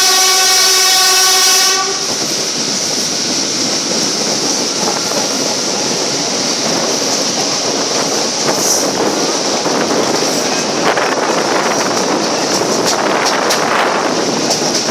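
A WAP-4 electric locomotive's horn sounds one long, steady blast that cuts off about two seconds in. After it comes the steady rumble and clatter of the moving passenger train on the track.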